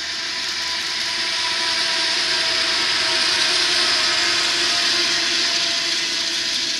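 Diesel-electric freight locomotives of a double-stack container train passing close by, followed by the stack cars rolling over the rails. A loud, steady rush with a faint hum in it, building to its loudest about halfway through.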